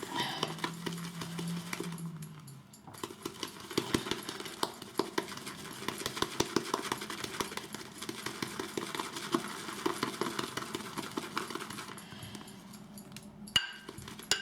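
Horsehair shaving brush worked rapidly around a bowl, whipping shaving soap and water into lather: a dense, wet crackling and clicking, with a short lull early on and a single sharp click near the end.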